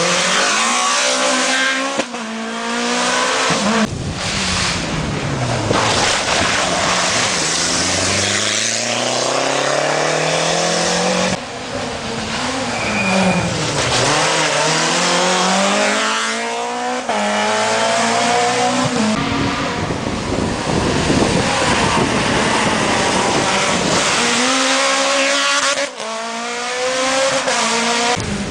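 Several rally cars in turn taking a tight tarmac bend, engines revving hard: the pitch drops as each one slows for the corner, then climbs in a series of rising sweeps as it accelerates away through the gears.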